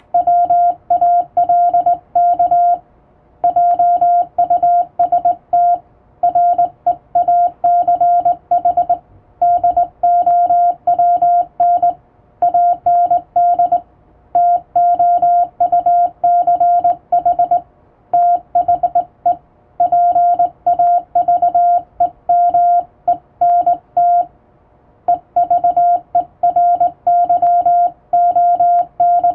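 Morse code sent by hand on a straight key: a single steady beep keyed on and off in quick dots and dashes, with short breaks between words every few seconds.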